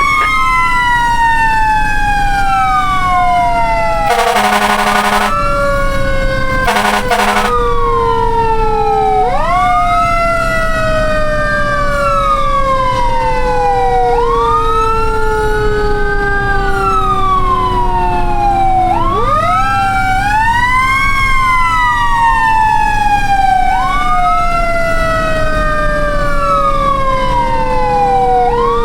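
Fire truck sirens wailing, at least two of them overlapping, each rising quickly and then falling slowly over several seconds. Two short horn blasts sound about four and seven seconds in.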